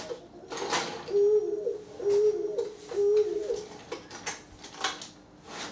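A pigeon cooing: three low coos about a second apart. Sharp clicks and clacks of wooden toy train pieces are handled on the floor, mostly in the second half.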